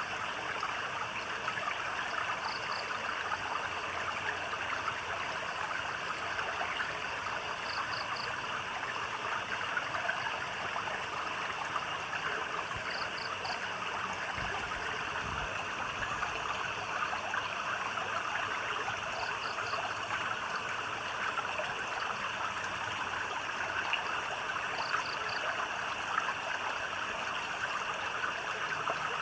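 Steady trickle and splash of a small stream of water. Over it, a small animal repeats a short, high call of two or three quick notes about every five to six seconds.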